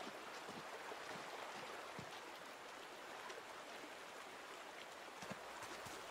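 Steady rushing of a shallow river, with a few faint clicks.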